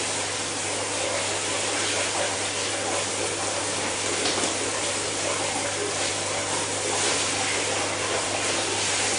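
Water running steadily in a bathroom as a dog is washed, over a constant low hum.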